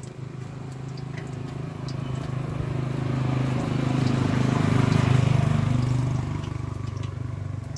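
A motor vehicle engine passing by: a low hum that swells to its loudest about five seconds in, then fades away.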